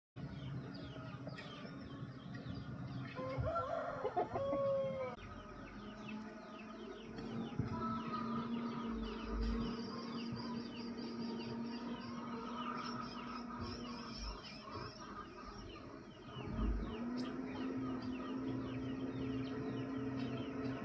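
A steady low engine hum, with a rooster crowing once about three to five seconds in. The hum drops away for a couple of seconds near the two-thirds mark, then comes back.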